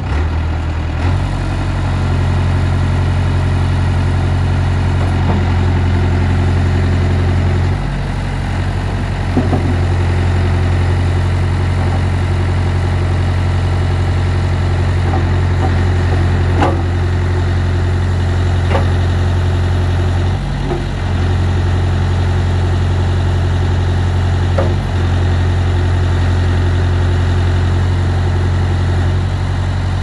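Caterpillar 416D backhoe loader's four-cylinder diesel engine running steadily while the backhoe boom and bucket are worked hydraulically. The engine picks up about a second in and sags briefly a few times under load, with a few sharp clunks from the machine.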